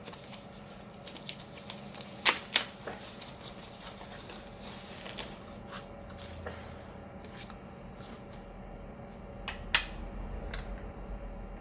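Handling noises while unpacking a microphone stand: scattered light clicks and rustles of the packaging and parts, with two sharper knocks, one about two seconds in and one near the end.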